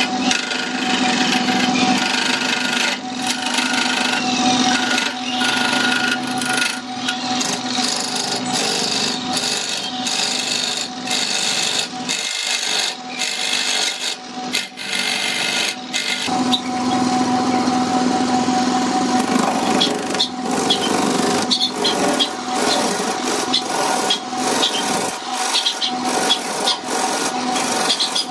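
Wood lathe running while a hand-held turning tool cuts into a spinning glued-up blank of small firewood pieces: a steady motor hum under a coarse scraping, cutting noise that dips briefly many times.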